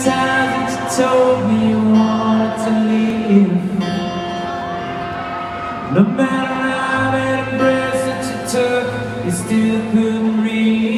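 A live acoustic song in a large arena: a man singing long, held notes to acoustic guitar, heard from far back in the crowd.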